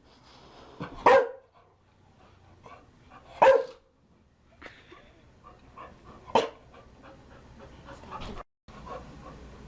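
Chow Chow barking: single loud barks a couple of seconds apart, three of them strong, with softer barks and sounds in between.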